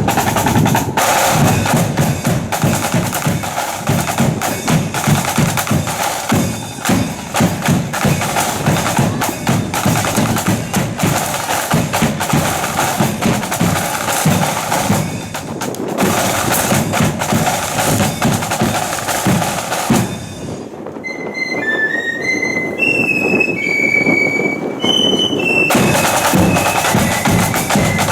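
Marching flute band: snare drums rolling with a steady bass drum beat, then about twenty seconds in the drums drop away and the flutes play a high melody alone, before the drums come back in near the end.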